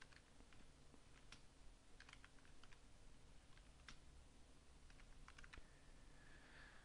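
Faint computer keyboard keystrokes: numbers being typed in scattered, irregular clicks.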